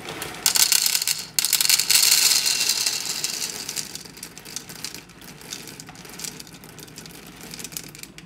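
Dried chickpeas pouring from a plastic bag into a plastic measuring cup: a dense clattering rattle for the first few seconds, thinning to scattered clicks as the last peas trickle in.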